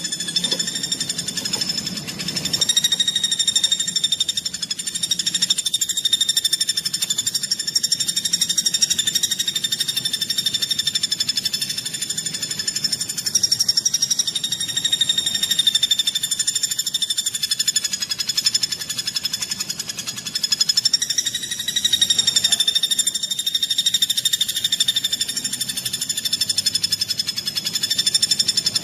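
A fast, dense trilled call from a bird-training (masteran) recording: one continuous, very rapid buzzing trill held at a steady pitch, swelling and easing every few seconds.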